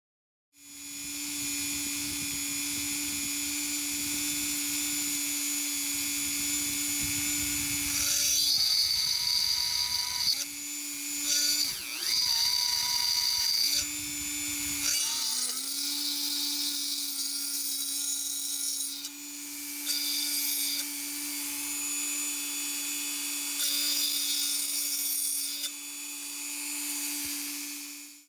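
A drill running with a steady whine and hiss as it drills holes in a metal siren housing. Its pitch sags briefly a few times as the bit bites.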